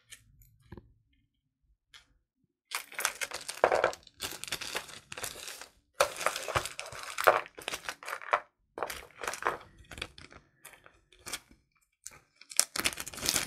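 A plastic baggie crinkling and rustling in irregular bursts as it is handled, starting about three seconds in.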